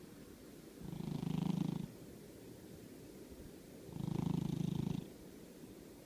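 British Shorthair cat purring, with two louder swells of about a second each, about a second in and again about four seconds in, between softer stretches.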